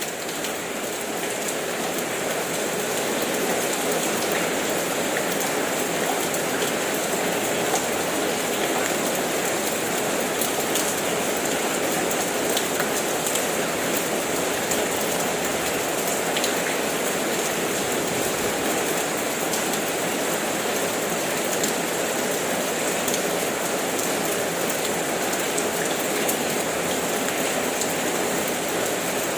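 Steady rain falling, with the patter of individual drops scattered through it. It swells up over the first few seconds, then holds even.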